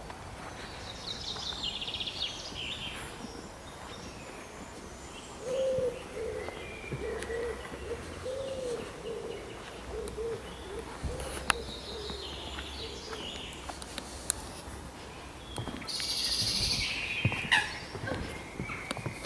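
Songbirds chirping and singing, with a pigeon cooing a series of low repeated notes from about five seconds in for some six seconds.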